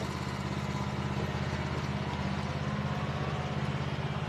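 A vehicle engine running steadily, with a low, even throb.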